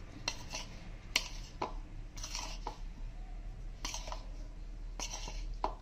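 A metal spoon tossing spiced paneer cubes in a plastic bowl: irregular soft scrapes and light clicks as the spoon strikes the bowl, about ten in all.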